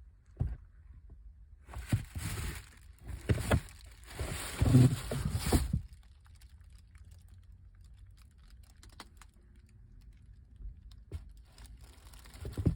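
Sneakers and their packaging being handled during an unboxing: crinkling and rustling with light knocks and clicks, in several bursts from about two to six seconds in, then a few faint clicks and a brief rustle near the end.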